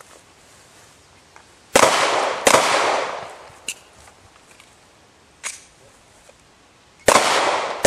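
Pistol shots: two shots about three quarters of a second apart near the two-second mark, then a pause with a small click and a fainter crack, and two more shots near the end, each crack trailing off in a short echo.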